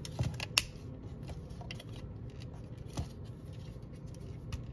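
Hard plastic parts of a Transformers Studio Series 86 Starscream action figure clicking and snapping as they are folded together during its transformation: a few sharp clicks, the loudest about half a second in, another around three seconds in and a small one near the end.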